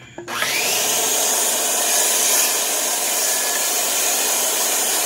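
Corded circular saw spinning up about a quarter second in with a rising whine, then running steadily at full speed as it cuts across an old dried wooden brace board.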